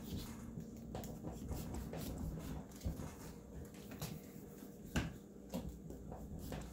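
Kitchen knife sawing into a pumpkin's tough rind around the top, giving irregular clicks and scrapes as the blade works through.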